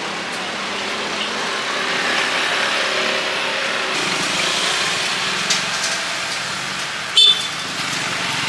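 Busy street ambience with steady passing traffic, cut by a short vehicle horn toot about seven seconds in.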